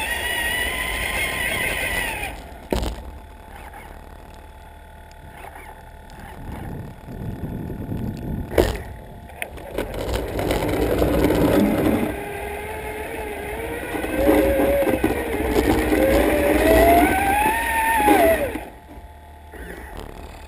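Traxxas Summit RC truck's electric drive whining, its pitch rising and falling with throttle. It goes quiet for several seconds with two sharp knocks, then whines up and down again and cuts off near the end.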